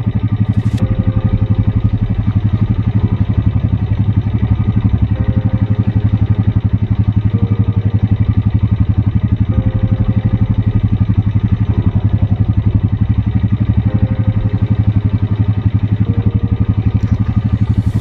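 An engine idling steadily, with a low hum and an even, fast pulse.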